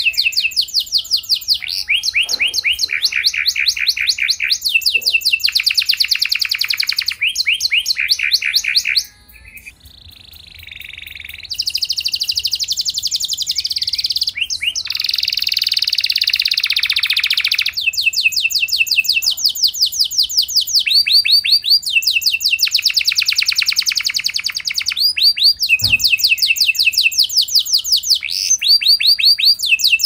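Domestic canary singing a long, loud song made of fast trills, one rapid run of notes after another, with a short quieter break about a third of the way through.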